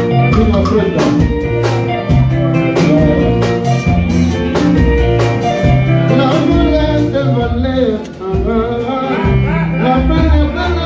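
Live band playing a song: electric guitar, bass notes and drum kit, with a man's voice singing over the band, most clearly from about six seconds in.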